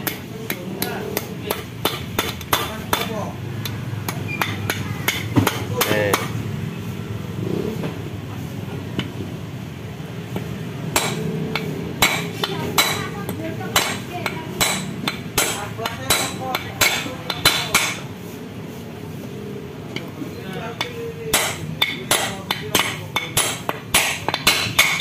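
Hammer tapping ball bearings into the aluminium final-drive (gardan) case of a Yamaha Mio M3 scooter: rapid runs of sharp metallic taps in three spells, with pauses between.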